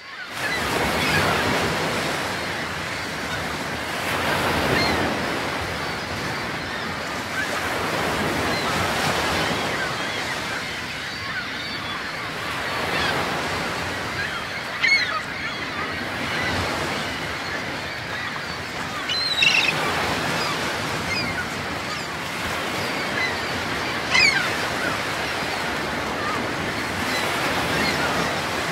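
Sea waves washing in on a shore, the surf noise swelling and easing every few seconds, with a few short bird calls over it.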